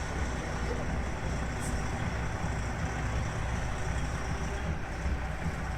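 Helicopter running steadily: a continuous rotor and turbine noise, heaviest in the low end.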